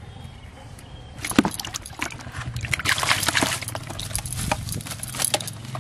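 Freshly caught catfish thrashing in a plastic bucket of water, a run of sharp splashes starting about a second in and going on for several seconds.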